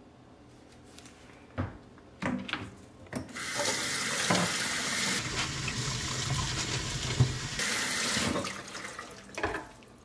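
Kitchen tap running into the sink for about five seconds while a peeled red onion is rinsed. A few knocks come in the first three seconds, and another near the end.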